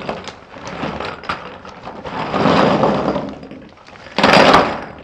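Small plastic counting bears clattering as they are tipped and poured out of their container: three rushes of rattling, the loudest and shortest near the end.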